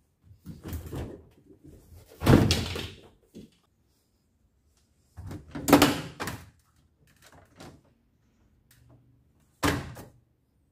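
Plastic top panel and folding lid of a top-loading washing machine being handled and knocked: three loud thunks, about two seconds in, about six seconds in and near the end, with softer rattles and rubbing between.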